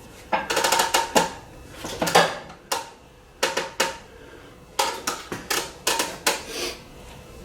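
Manual tire changer's steel mount bar and bead tool clanking and scraping against the wheel rim as a stiff low-profile tire bead is pushed around the rim, in irregular bursts of sharp metallic clanks with brief ringing.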